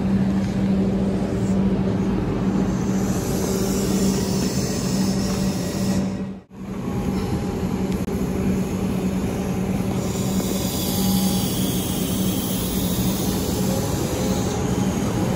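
Suburban electric train at a station, running with a steady low hum. The sound drops out sharply for a moment about six and a half seconds in, and a hiss grows stronger over the second half.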